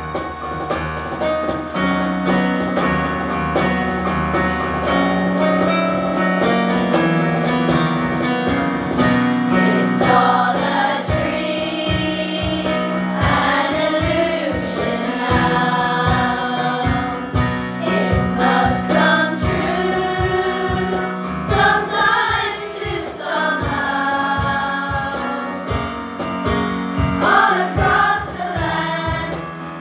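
Children's choir singing a Christmas carol with keyboard accompaniment. The accompaniment plays sustained chords alone for about the first ten seconds, then the voices come in over a steady beat.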